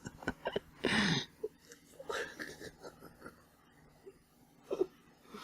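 A man's stifled, breathy giggling: short snickers and hissing breaths through the nose and teeth, held down to stay quiet.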